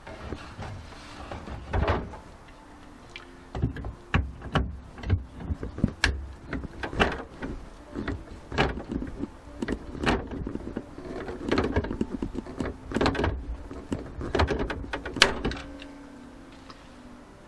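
Irregular knocks, clicks and clatter of tools and parts being handled and set down on a workbench, the sharpest about two seconds in and a cluster near the end.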